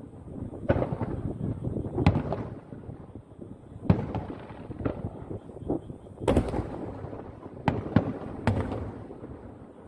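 Aerial fireworks shells bursting: about ten sharp booms, each trailing off in a rolling echo, the loudest a little past the middle.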